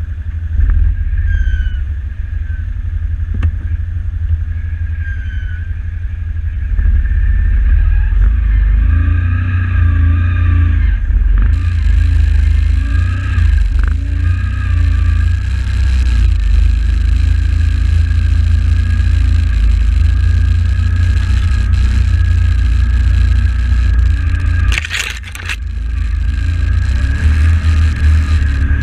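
Can-Am 1000R XMR ATV's V-twin engine running under load as the quad is ridden through mud and shallow water, getting louder about seven seconds in as the rider gives it more throttle. A short rush of noise breaks in near the end.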